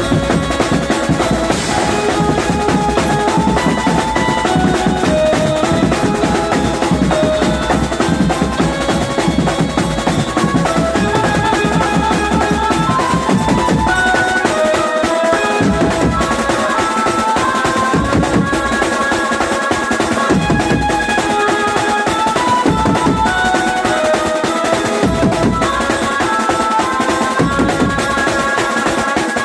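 Live band of several drummers pounding sets of tom-toms, bass drum and cymbals in a fast, driving rhythm under a melody of short held notes. The deep drum drops out for moments now and then in the second half.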